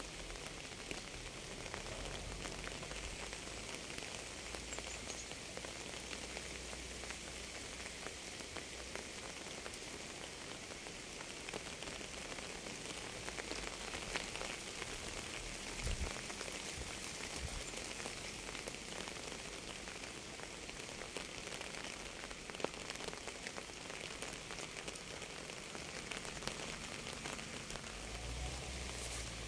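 Steady rain falling on a surface: a dense, even hiss of many drops ticking, with a few louder single drops standing out near the middle.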